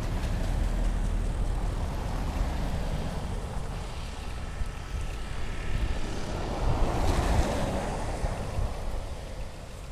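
Snowstorm wind buffeting the microphone in a steady low rumble, with a broader rushing swell about two-thirds of the way through.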